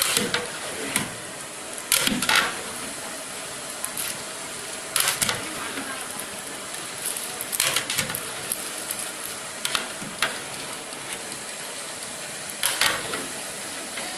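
Chicken frying in a pot with a steady sizzle, stirred in short scraping bouts every few seconds, a ladle grating against the pot.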